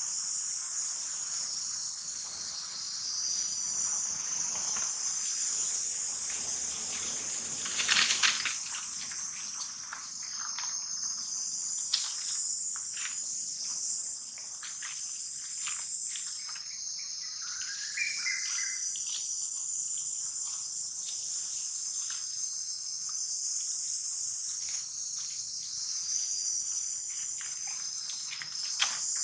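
Steady, high-pitched insect chorus. A few sharp clicks and rustles cut through it, the loudest about eight seconds in.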